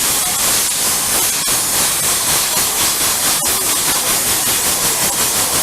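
Steam engine hissing steadily, a loud rush of escaping steam with a faint, even beat running through it.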